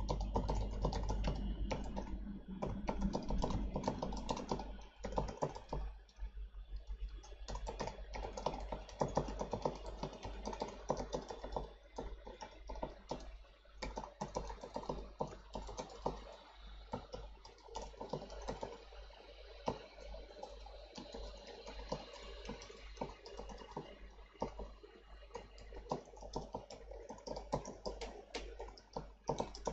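Typing on a computer keyboard: quick, irregular runs of keystrokes with short pauses between words and phrases, over a steady low hum.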